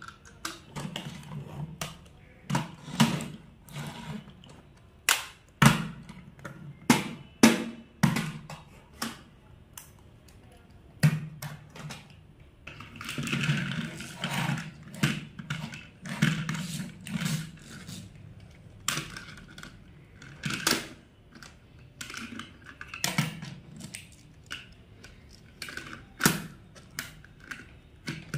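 Plastic toy cars clicking and knocking against a wooden tabletop as they are picked up, set down and pushed, in irregular sharp taps. About 13 seconds in comes a longer scraping stretch as a toy fire truck is pushed along the table.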